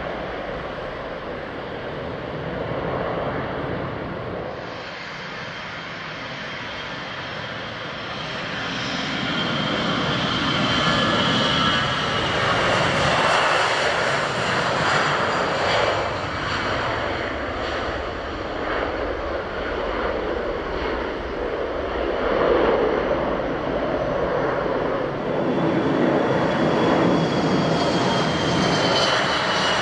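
Jet airliner engines at takeoff power on a wet runway: a broad steady noise with a high turbine whine that slides slowly down in pitch. It grows louder about eight seconds in and stays loud.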